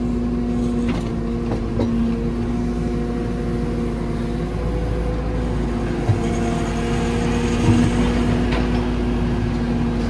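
JCB 4CX backhoe loader's diesel engine running steadily as the backhoe digs, heard from inside the cab, with a few knocks from the bucket working.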